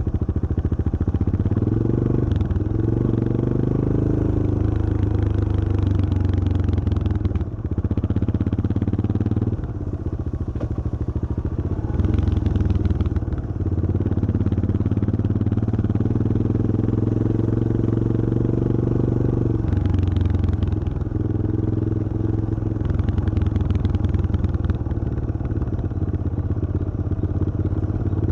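Yamaha XT225 Serow's air-cooled single-cylinder four-stroke engine running under way, its revs climbing and easing off several times as the throttle is worked, with brief drops in engine note between pulls.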